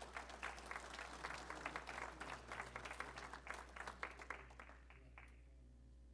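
Audience applauding: many hands clapping, thinning out and stopping about five seconds in.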